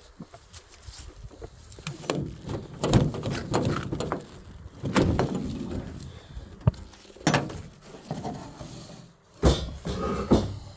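Beehive frames and kit being loaded into the back of a van: a series of knocks and clatters, with a sharp bang about nine and a half seconds in.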